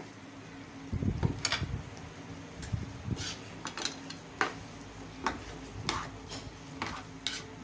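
A spatula stirring and tossing chicken and vegetables in a wok, with irregular clinks and scrapes against the pan starting about a second in.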